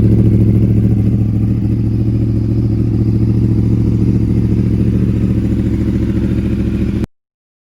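Motorcycle engine idling steadily through an exhaust with its catalytic converter removed (a cat delete). The sound cuts off abruptly about seven seconds in.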